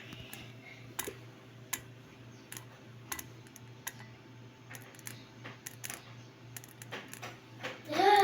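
Faint, irregular sharp clicks and ticks from a bowl of food, roughly one a second, the odd sound heard coming from the bowl during lunch.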